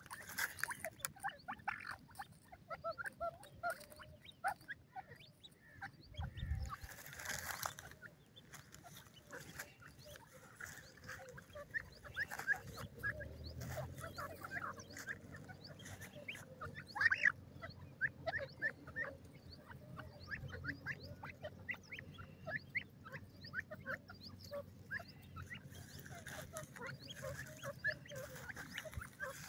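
A group of grey francolins foraging, giving many short, soft chirping calls throughout. A brief rush of noise comes about seven seconds in, and a low steady hum sets in about halfway through.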